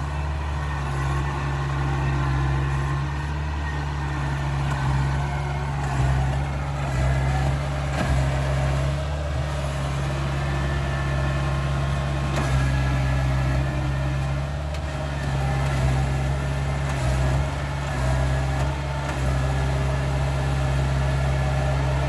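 Tracked rice combine harvester's diesel engine running steadily under load, its low note swelling and easing slightly as the machine works through deep mud.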